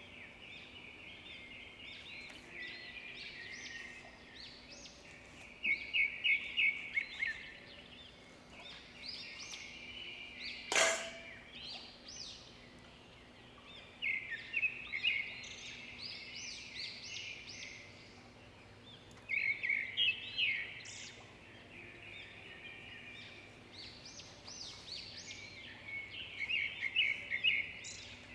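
Small birds chirping in repeated bursts of quick, high chirps every few seconds over a faint steady high hum. There is one sharp knock about eleven seconds in.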